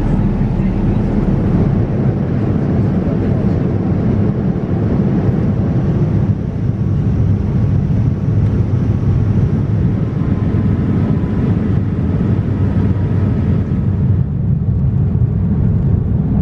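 Boeing 787-9 cabin noise in flight: a loud, steady low rumble of airflow and engines heard from a window seat. The upper hiss drops away suddenly near the end.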